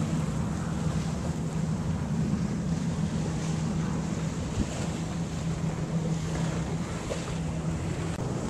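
Wind buffeting the microphone and water rushing along a sailboat's hull under sail, with a steady low hum underneath that fades near the end.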